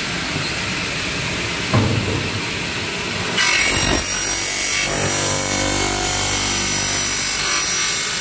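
Double-head aluminium cutting saw running, with a sharp knock about two seconds in. From about three and a half seconds its blades cut through an aluminium window profile: a loud, high screech with ringing tones over the motor hum.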